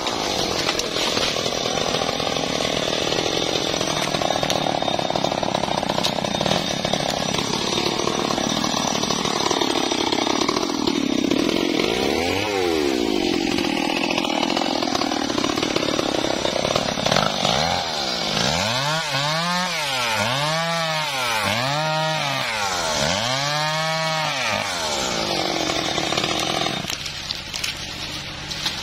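Stihl MS 381 two-stroke chainsaw running at high speed, with a brief dip and rise in engine speed around twelve seconds in. It is then revved up and down about five times in quick succession, and drops back to idle near the end.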